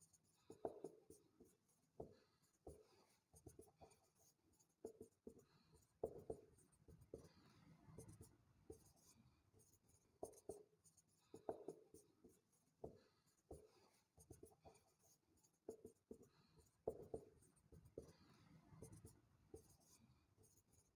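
Faint, scattered strokes and taps of a marker writing on a whiteboard.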